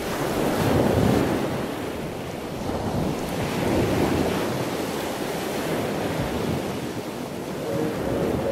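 Ocean surf: waves washing onto a beach, swelling about a second in and again around four seconds.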